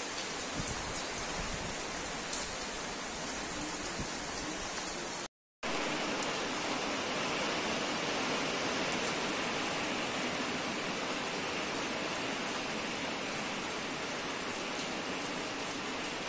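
Heavy rain falling steadily on a flat concrete rooftop: a continuous hiss with a few scattered drop ticks. The sound cuts out for a moment about five seconds in, then carries on a little louder.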